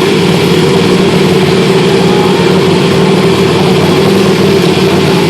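KTM RC8R's V-twin engine idling steadily at a constant pitch.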